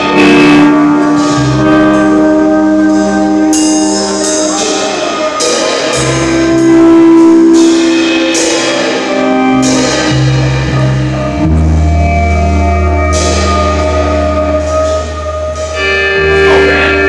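Live band playing loudly: guitars and bass holding chords that change every second or two, over a drum kit with cymbal hits.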